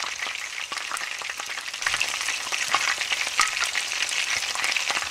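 Hot ghee tempering of cumin, curry leaves, whole red chillies and green chillies sizzling and crackling in a wok. It gets louder about two seconds in as the tadka is poured over the karhi.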